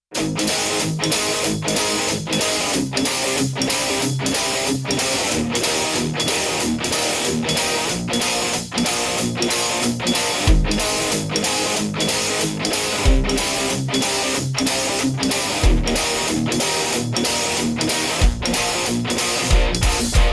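Instrumental rock intro: strummed electric guitar in an even pulse of about two strokes a second, starting abruptly out of silence, with heavy low drum hits coming in about halfway.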